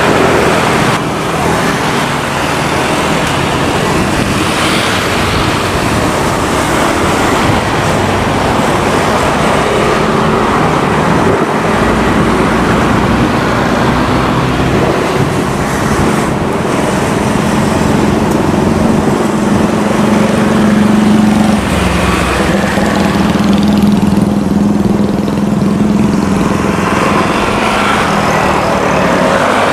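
Beechcraft King Air 350i's twin Pratt & Whitney PT6A-60A turboprops climbing out after takeoff: a steady engine and propeller drone with a low hum that grows stronger past the middle.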